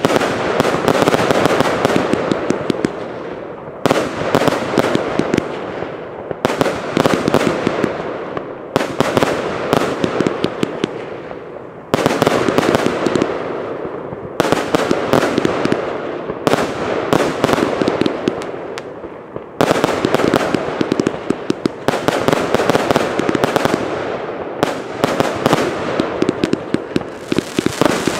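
Consumer firework cake firing shot after shot, each burst breaking into dense crackling. The crackle comes in waves that start suddenly about every two to three seconds and fade away before the next.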